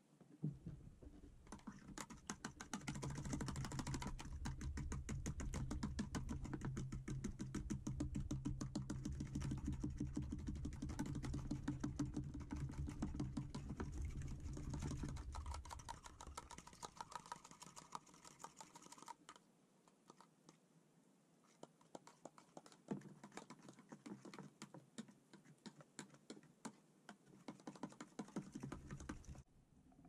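Eggs being beaten with a fork in a bowl: a rapid run of light clicks of the fork against the bowl, dense for about the first fifteen seconds with a low hum underneath, then sparser and lighter.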